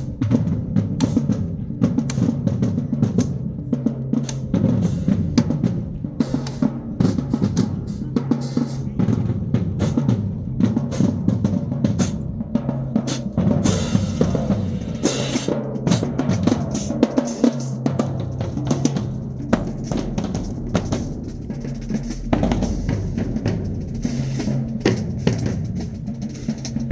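Marching band drumline playing a fast percussion cadence: rapid snare drum strokes and rolls over booming bass drums. A couple of cymbal crashes come about halfway through.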